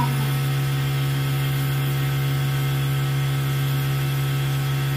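Dental suction unit running with a steady electric hum, drawing through the saliva ejector in the patient's mouth.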